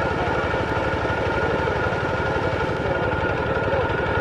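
Kubota tractor's diesel engine running steadily, with a steady whine over the throb.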